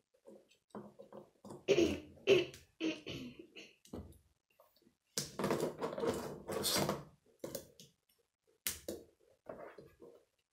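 Lego tyres and bricks being handled and pressed onto a small model on a tabletop: a series of short clicks and knocks, with a denser stretch of clattering and rubbing in the middle.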